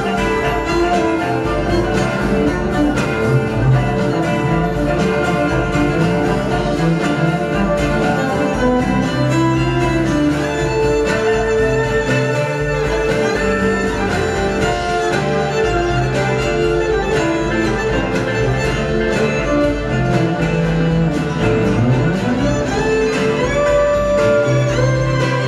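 Live band playing an instrumental passage, a fiddle leading over electric bass.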